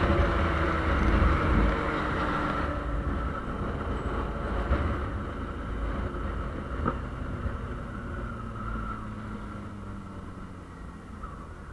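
Yamaha Fazer 600 inline-four motorcycle engine with a gutted, de-baffled muffler, heard while riding. The engine note slowly falls in pitch and grows quieter as the revs drop.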